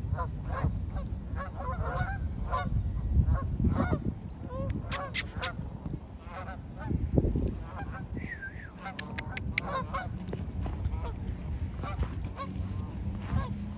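A flock of Canada geese on the water honking, many short calls overlapping throughout, over a low steady rumble.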